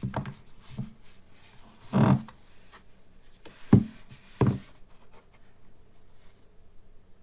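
A Google Home Hub smart display being handled and turned over by hand: a few knocks and rubs, the loudest a longer rub about two seconds in, then two sharp knocks close together near the four-second mark.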